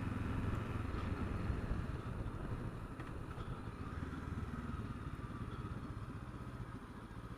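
Motorcycle engine running steadily while riding along, its level easing down slightly over the few seconds.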